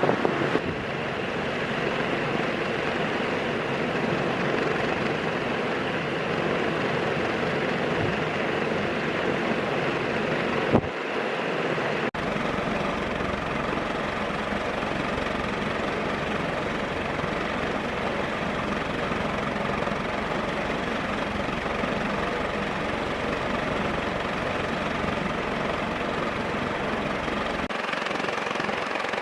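Jinling FC-30X5 ceiling fan with five metal blades running on high speed: a steady rush of moving air over a motor hum, with one sharp click about eleven seconds in.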